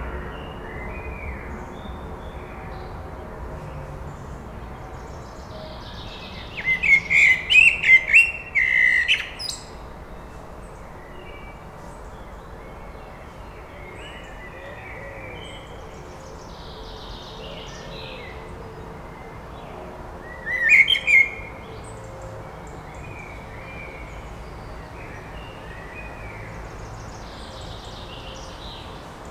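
Male Eurasian blackbird singing: a longer phrase of quick notes that ends in a high twitter, then a short phrase later on, over faint song from other birds.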